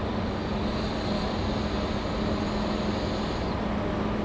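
Steady mechanical drone with a low, even hum and no change in loudness, with a faint high tone that fades out about three and a half seconds in.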